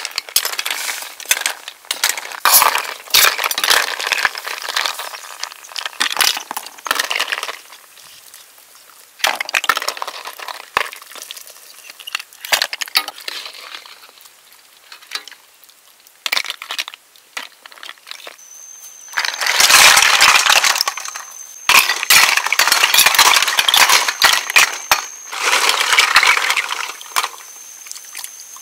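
Snail shells clicking and clinking against one another and against a metal wok and bowl as they are handled, stirred and washed, with bursts of sloshing and splashing water, loudest in the second half.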